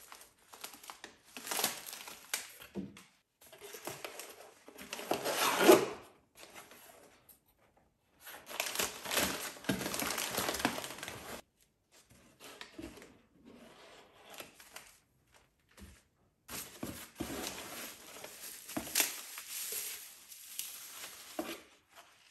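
Brown kraft paper crinkling and rustling as packing paper and paper product bags are handled in a cardboard box. It comes in several bouts with short pauses between, and the loudest crackle is just before 6 s.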